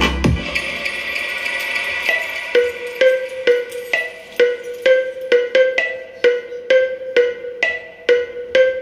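Electronic dance music played through a pair of GMC 897L Bluetooth speakers, in a breakdown with the bass dropped out. A held synth chord gives way, about two and a half seconds in, to a short percussive note repeating about twice a second.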